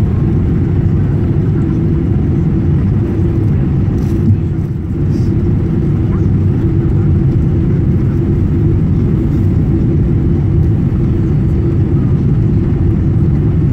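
Jet airliner cabin noise on low approach: a steady, loud low rumble of engines and airflow with a constant hum. A single short click about four seconds in.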